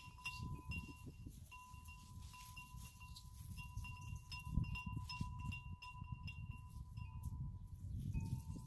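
Metal wind chimes ringing almost continuously in the breeze, with a second, lower chime joining near the end. Wind is rumbling on the microphone.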